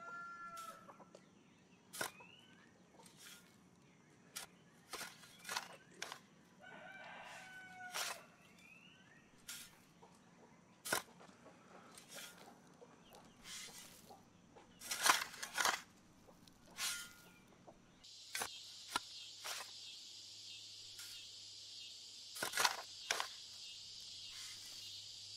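Faint farmyard ambience: a rooster crowing, with scattered sharp knocks and clicks. About two-thirds of the way through, a steady high insect drone comes in.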